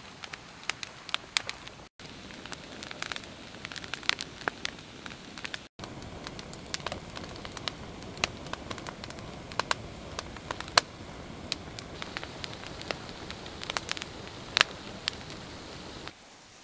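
Campfire of dry sticks crackling: sharp, irregular pops over a steady hiss of burning. The sound drops out for an instant twice in the first six seconds.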